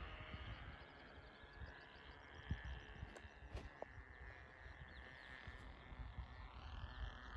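Thunder Tiger GP25 glow engine on a distant RC plane in flight, heard as a faint, high, steady buzz whose pitch climbs near the end. The engine is running a little rich. Wind rumbles on the microphone underneath.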